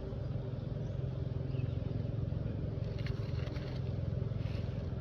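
A steady low motor hum, with a few light clicks and taps in the second half.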